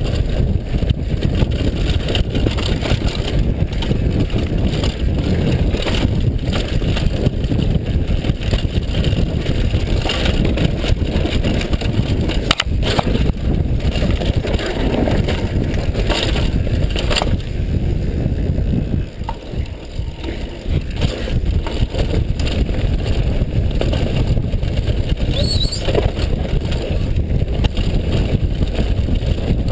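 Mountain bike rattling and crunching at speed down a rough dirt and gravel trail, with many small knocks and clatters from the bike and heavy wind rush on the microphone. The noise eases briefly about two-thirds of the way through.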